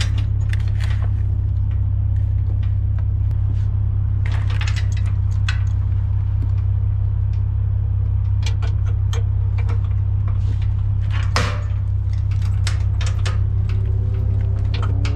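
Ford F-150 Raptor's twin-turbo EcoBoost V6 idling with a steady low rumble. Over it come scattered metal clinks and rattles of the trailer's safety chain and hitch hardware being handled, the loudest about eleven seconds in.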